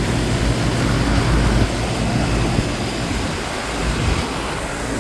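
Several Bryant 561CP three-phase air conditioners running together: a steady rush of condenser fans over a low compressor hum.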